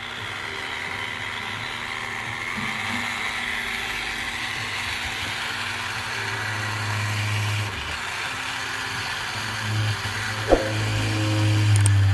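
A small motor running steadily with a low hum, growing louder near the end, with a sharp click about ten and a half seconds in.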